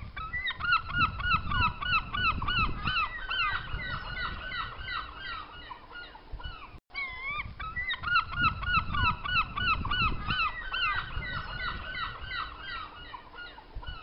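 Herring gulls giving their long call: a rapid series of yelping notes, several a second, in two bouts broken by a brief gap about seven seconds in, over a low background rumble.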